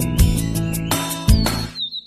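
Background music with a steady beat and plucked guitar. Near the end the music breaks off, leaving a high, wavering, repeated whistle.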